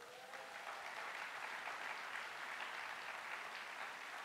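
Audience applauding, swelling up quickly at the start and holding steady.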